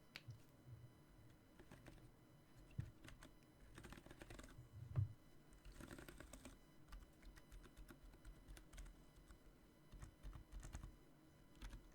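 Soft, muted typing on a Drop Carina mechanical keyboard with Boba U4 62g silent tactile switches and POM keycaps in an acrylic case: a steady patter of quiet keystrokes with a denser, louder flurry about four to five seconds in. A faint electrical buzz from the microphone line runs underneath.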